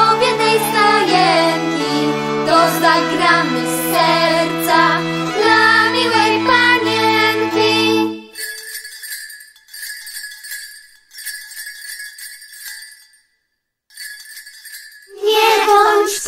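A children's Christmas song accompaniment with held chords and a melody ends about eight seconds in. Then small jingle bells are shaken in four short bursts.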